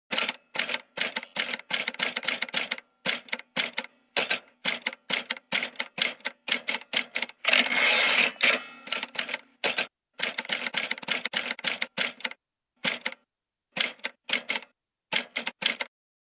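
Typewriter keys striking in quick, irregular runs of clicks, with a longer, noisier stretch about eight seconds in.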